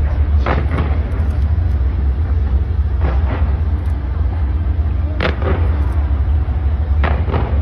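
Skyscraper fireworks going off: several sharp bangs a couple of seconds apart over a steady deep rumble.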